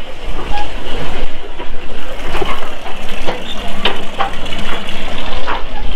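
Steady outdoor background rumble with scattered short clicks and knocks and snatches of faint distant voices.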